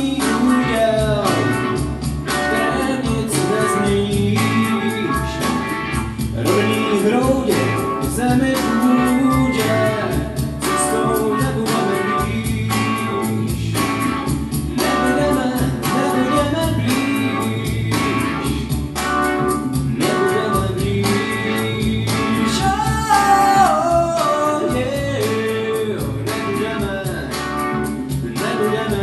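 A man sings a pop song into a microphone, with instrumental accompaniment and a steady beat.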